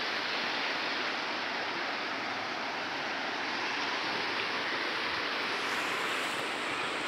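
Fast-flowing river water rushing steadily over a rocky bed, an even hiss of moving water.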